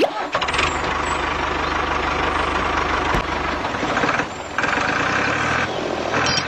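Tractor engine running steadily, a low rhythmic rumble under a noisy hiss. It dips briefly about four seconds in and picks up again with a higher whine.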